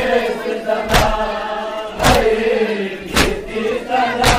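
Crowd of men chanting a mourning lament (noha) in unison, with a loud collective chest-beating strike (matam) about once a second keeping the rhythm.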